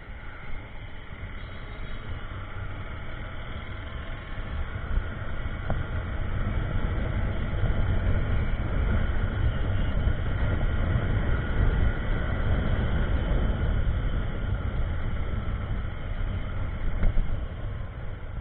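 Motorcycle on the move at speed: wind rushing and buffeting over the microphone, with the bike's engine running underneath. It grows louder about six seconds in.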